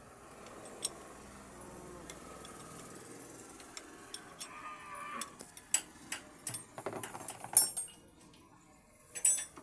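Metal clinks and knocks from hand tools working on a Cat 424B backhoe loader's control lever linkage while the levers are changed from a cross to a plus pattern. The sounds are scattered, grow busier in the second half, and the loudest knock comes about two-thirds of the way in.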